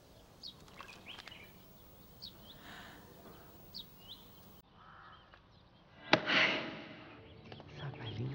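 Faint, scattered bird chirps, then about six seconds in a single loud, harsh crow caw.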